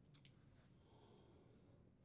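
Near silence: faint room tone with two faint short clicks about a quarter second in.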